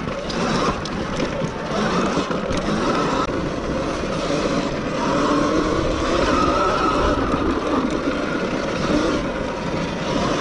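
Sur-Ron 7 kW electric dirt bike being ridden, its motor whine rising and falling with speed over a steady rush of wind and riding noise.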